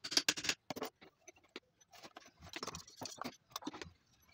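Small metal clinks and taps as an alternator is reassembled by hand: parts and a tool knocking against the housing in quick, irregular clusters, busiest at the start and again in the second half.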